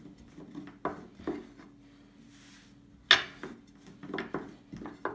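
Thin wooden rolling pin rolling out dough on a wooden table, knocking and tapping against the board at irregular moments, the sharpest knock about three seconds in.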